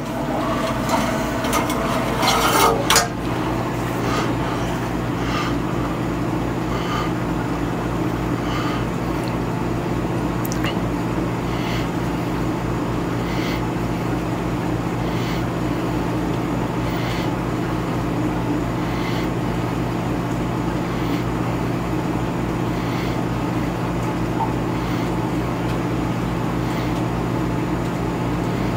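Steady machinery hum in a boat's engine room. Over it, a clatter of handling in the first few seconds, then faint regular glugs as motor oil is poured from a gallon jug into a diesel engine's oil filler.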